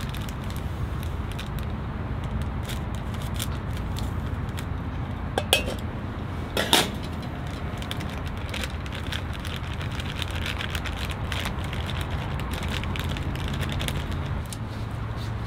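Steady low rumble of wind and surf at the seashore, with light crackling and two brief sharper sounds about five and a half and seven seconds in.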